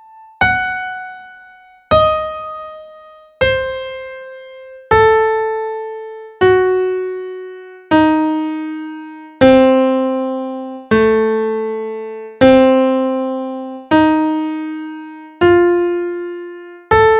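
Piano playing an A arpeggio one slow, evenly spaced note at a time, about one every second and a half (quarter note = 40), each note struck and left to ring away. The notes step downward to the lowest one about eleven seconds in, then climb back up.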